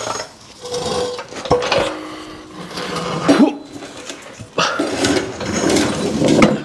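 Irregular metal clanks, knocks and scrapes as a heavy Ford 9-inch rear axle housing is shifted about by hand beside a floor jack, with sharp clunks scattered through and the loudest in the middle and near the end.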